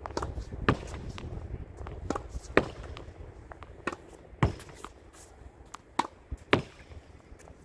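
Tennis rally against a practice wall with a regular-weight, regular-compression ball: sharp pops of the racket striking the ball, with fainter knocks of the ball hitting the wall and bouncing on the court in between. The strongest hits come about every two seconds.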